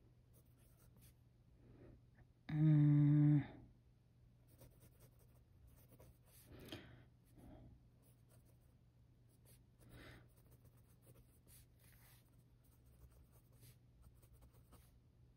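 Faint scratching of a Pilot Custom 823's gold fine nib writing on notebook paper in short strokes under light pressure. About two and a half seconds in, a voice gives a short hum lasting about a second.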